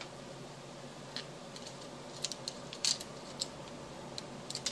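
Light irregular clicks and ticks of fingers handling a laptop's backlight inverter wiring and plastic screen frame at the hinge, the sharpest tick about three seconds in, over a faint steady hum.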